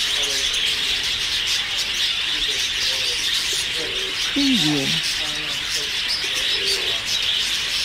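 A dense chorus of many birds chirping, with scattered lower calls beneath it. About halfway through comes a louder low call that falls in pitch.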